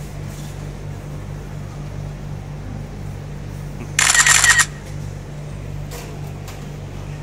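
A steady low hum, and about four seconds in a brief, loud crinkling rustle lasting about half a second from a disposable face mask handled right next to the phone's microphone.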